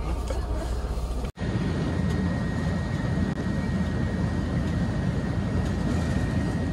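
Sleeper bus cabin: a low steady hum for about a second, then a louder, even engine and road drone from the moving bus, with a faint steady high whine.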